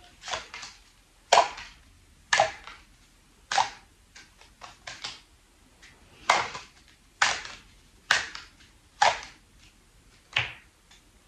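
A deck of tarot cards shuffled by hand, with a sharp papery snap about once a second as the cards slap together, about ten times.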